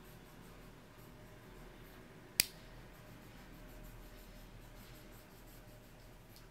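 Quiet handling noise of a small folding knife being turned in the hands, with a single sharp click about two and a half seconds in.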